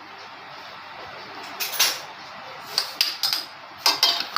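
A spoon knocking and scraping against a bowl in three short bouts, about two seconds in, three seconds in and near the end, as chopped vegetables are added, over a steady hiss.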